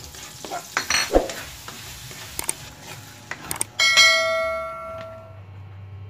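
Chopped garlic sizzling in oil in a wok, with a spatula scraping and clicking against the metal as it is stirred. About four seconds in, a sudden bell-like metallic ring sounds and fades out over about a second and a half.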